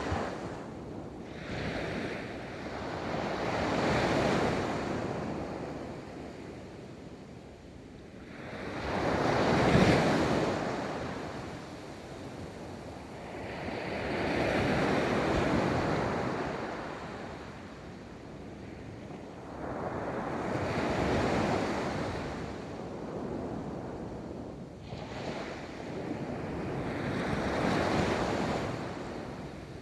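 Ocean waves breaking and washing up a beach, surging and fading in a slow rhythm of one wave every five or six seconds, the loudest one about ten seconds in.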